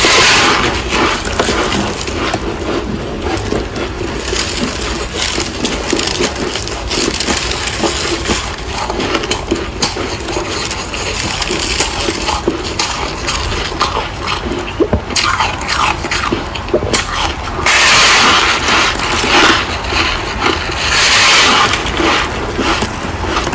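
Close-up crunching of freezer frost: dense, crackly crunches and clicks, with two louder stretches of crunching near the end.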